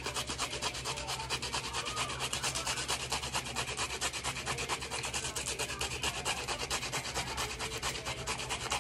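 Red onion being grated on a metal hand grater: quick, even rasping strokes, several a second, with no break.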